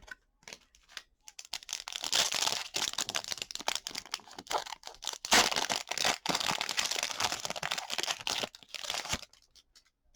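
Wrapper of a football trading-card pack being torn open and crinkled, a dense crackling that starts a second or two in and runs for about eight seconds.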